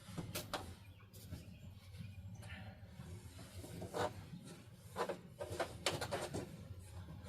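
Scattered light clicks and knocks, thicker about two-thirds of the way through, over a steady low hum.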